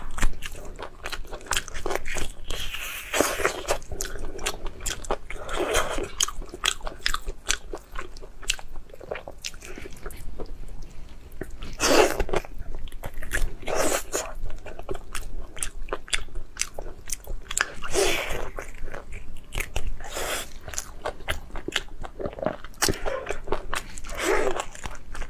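A person eating close to the microphone: crunchy bites and chewing, with many small clicks and a louder bite every few seconds.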